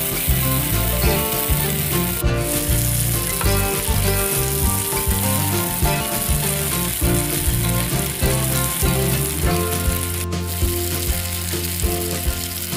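Fish egg curry masala sizzling in a frying pan as it is stirred with a spatula, over background music with a bass line. The high sizzle breaks off for a moment twice.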